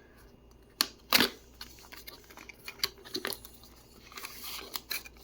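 A small cardboard box being opened and its contents handled: a few sharp clicks and taps, the loudest about a second in, among paper and cardboard rustling.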